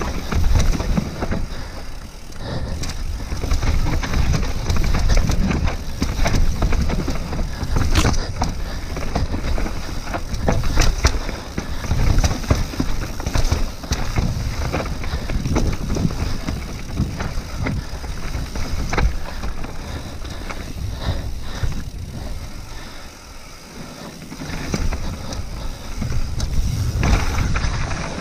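Mountain bike riding down a rough downhill trail: tyres on dirt and rock and the bike clattering over bumps in rapid knocks, over a low rumble of wind on the microphone. It eases off briefly about three-quarters of the way through.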